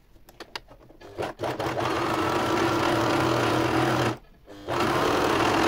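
Electric domestic sewing machine stitching knit fabric, running at a steady speed. A few light clicks come first, then it runs for about three seconds, stops briefly, and runs again.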